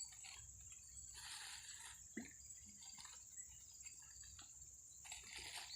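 Near silence: a faint, steady high-pitched insect drone, with soft scuffing or splashing noises about a second in and again near the end.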